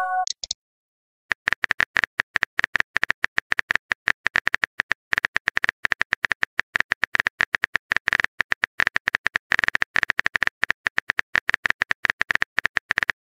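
Rapid phone keyboard tap clicks, the typing sound effect of a text message being entered, starting a little over a second in and going on to the end. A short message chime sounds right at the start.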